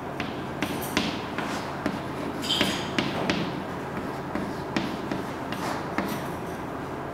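Chalk writing on a blackboard: short taps and scrapes at irregular intervals as the chalk strikes and drags across the board, with a longer scratchy stroke about two and a half seconds in.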